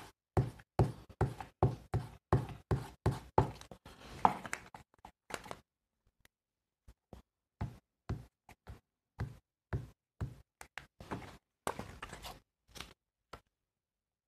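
A quick run of knocks and taps on the work table, about two or three a second for the first five seconds, then scattered, lighter taps, as a paper tag is pressed and smoothed down onto glued paper.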